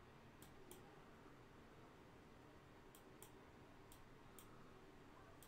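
Faint computer mouse clicks over near silence: about six clicks, mostly in pairs a fraction of a second apart.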